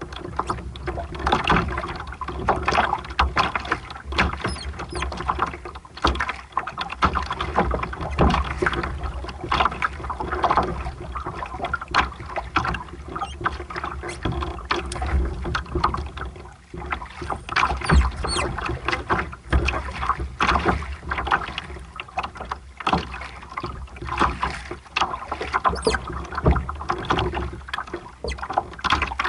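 Water splashing and lapping against a sailboat's hull while under way, in irregular washes, with a steady low rumble of wind buffeting the microphone.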